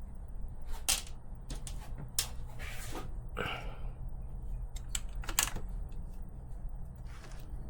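Irregular clicks and light clatters of small parts and tools being handled and rummaged through while searching for a screw, over a steady low hum.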